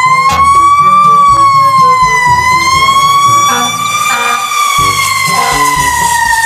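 Fire truck siren wailing: one long tone that rises and falls slowly, then slides steadily down in pitch over the last few seconds.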